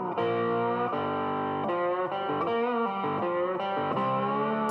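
Background guitar music: sustained chords changing every second or so.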